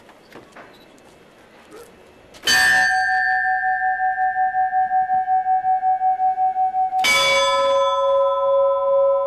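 Two Orthodox monastery belfry bells struck one after the other, about two and a half seconds in and again about seven seconds in. The first rings on with a pulsing waver, and the second is lower and rings over it. The bells are being tried out as the peals are set up on a newly built bell tower.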